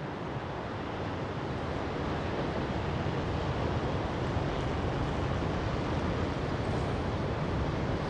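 Steady rushing of wind and sea surf, slowly growing louder, with no distinct events or calls.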